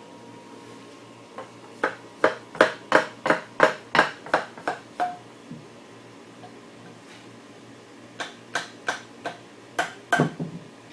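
Repeated sharp knocks on the wooden frame of a doweled antique chair, about three a second, in two runs with a pause between: the glued dowel joints being knocked loose to take the chair apart.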